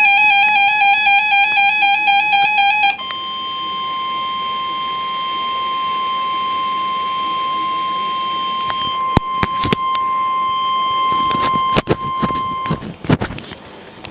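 A warbling electronic tone for about three seconds, then the NOAA Weather Radio 1050 Hz warning alarm tone: one steady, loud beep held for about ten seconds, the signal that a warning follows, here a severe thunderstorm warning. Sharp crackles of static come in over the last few seconds.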